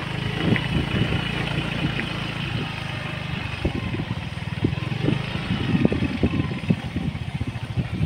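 A motorcycle engine running steadily, with irregular low thumps.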